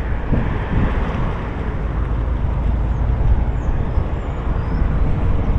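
Steady, fairly loud low rumbling rush of outdoor background noise, with no distinct knocks or splashes; a few faint high chirps come through around the middle.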